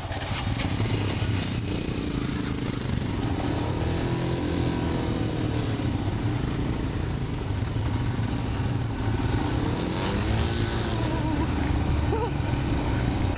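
Royal Enfield Himalayan single-cylinder motorcycle engine running under way at low speed, its revs rising and falling a couple of times as the throttle is opened and eased.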